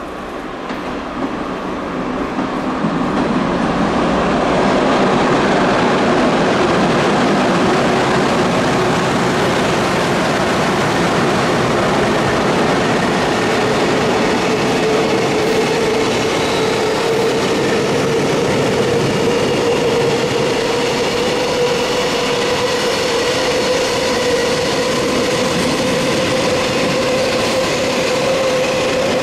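An EH500 electric locomotive hauling a long container freight train past at speed. The noise builds over the first few seconds as it nears, then becomes a steady rush of the container wagons' wheels rolling and clattering over the rails, with a steady whine coming up in the second half.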